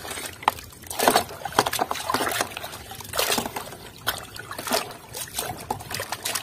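Muddy, soapy water sloshing and splashing in a tub as a hand scrubs a toy crawler crane in it, in irregular splashes of varying strength.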